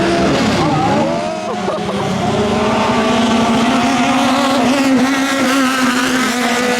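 Turbo-diesel longtail racing boat engine running flat out. Its pitch slides early on, then holds a steady drone.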